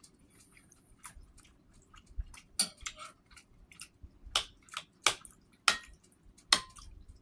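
Close-up chewing and wet mouth sounds of someone eating a spoonful of chicken noodle and rice soup, broken by a handful of sharp clicks that are loudest and most frequent in the second half.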